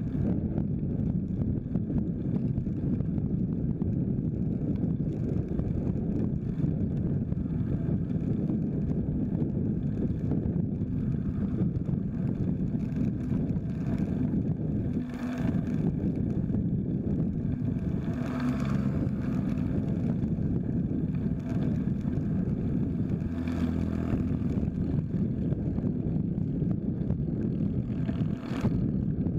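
Wind rushing over the microphone of a camera on a moving bicycle, a steady low rumble. Road vehicles pass a few times, their engines rising and fading about halfway through and again a little later.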